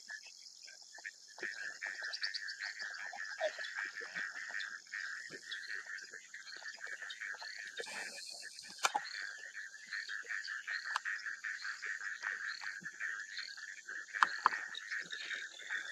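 Steady chorus of frogs and insects calling: a continuous trilling drone with a higher steady band above it and a run of short repeated chirps. Scattered small clicks throughout, and a few short sharp knocks near the end.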